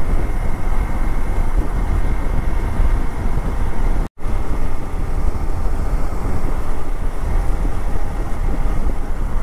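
Wind rushing over the microphone together with the steady drone of a Hero Xpulse 200 4V motorcycle's single-cylinder engine while riding at speed. The sound drops out completely for a split second about four seconds in.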